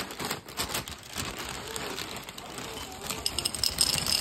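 Clear plastic bag crinkling as it is pulled open, then small round cereal pieces pouring and rattling into a ceramic bowl, a quick patter of clicks that gets louder about three seconds in.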